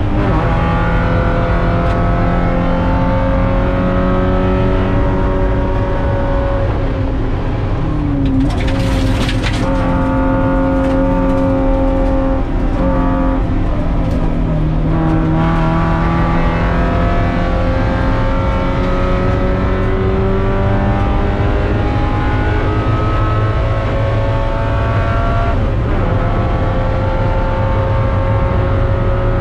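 Spec Miata's four-cylinder engine at racing speed, heard from inside the cockpit, its pitch climbing slowly and then dropping several times on lifts and gear changes. A short rushing hiss comes about nine seconds in.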